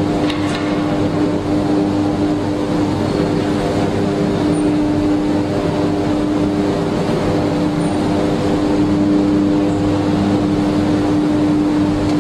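Heavy machinery running steadily: an engine drone holding a constant pitch over a rough rumble.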